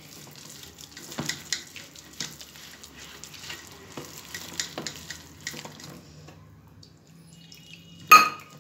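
Gram-flour batter being mixed by hand in a stainless-steel bowl: irregular wet slaps and squishes, easing off about six seconds in, then a single ringing metallic clink near the end.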